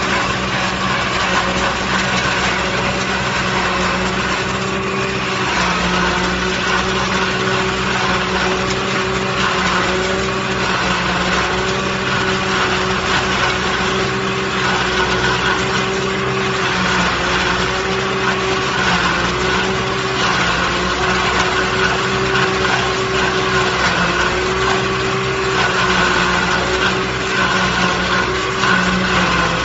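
Tractor engine running steadily while driving a side-mounted PTO forage harvester, with the hum and whine of the harvester's spinning cutter and chopper as it cuts and chops forage.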